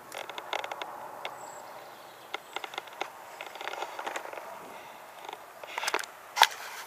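Close handling noise: scattered light clicks and rustling, in a few busy spells, with one sharp, loud click near the end.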